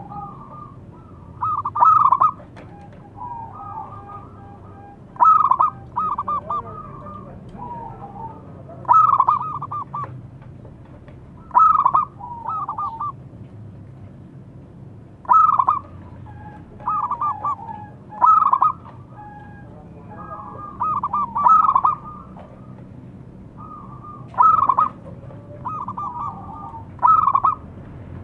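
Zebra dove singing: a quick run of staccato cooing notes, repeated about every three seconds, with quieter coos between the phrases.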